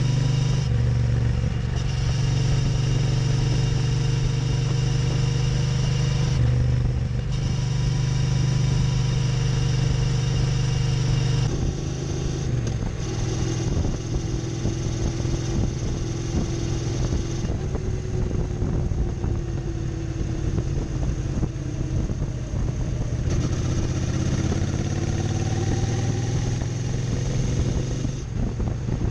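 Triumph Street Cup's 900 cc parallel-twin engine running under way, its air-intake snorkel removed. The drone is strong and steady at first, then drops and turns less even about eleven seconds in, with the engine note sliding down and rising again later.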